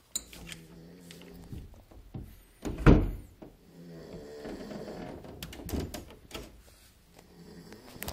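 A dog snoring in slow, drawn-out breaths, with a loud thump about three seconds in.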